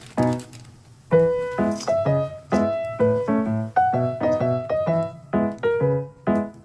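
Background music: a light piano tune, notes struck in quick succession.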